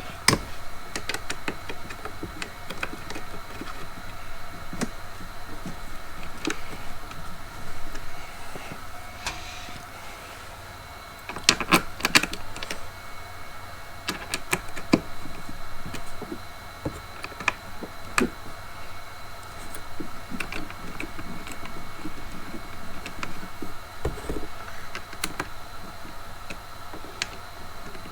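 Scattered clicks, taps and knocks of plastic and metal parts being handled while the handle is fitted to a Dewalt Flexvolt string trimmer, with a brief flurry of louder knocks about twelve seconds in, over a faint steady hum.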